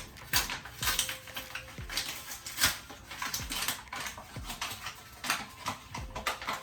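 Irregular clicks, taps and scrapes of kitchen containers and utensils, several a second, as flour is scooped into a storage container.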